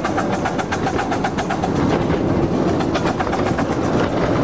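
Cagney miniature train running with its riders aboard: a steady rumble with rapid, even clicking of the wheels over the track, several clicks a second.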